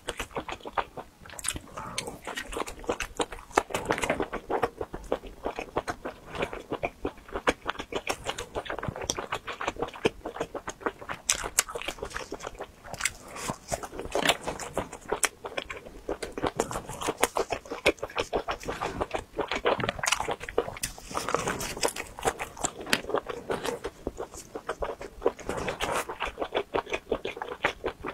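Close-miked biting and chewing of deep-fried wheat gluten skewers: a dense run of crisp crunches and crackles as the crust breaks. The gluten was fried a little too long, which makes it extra crunchy.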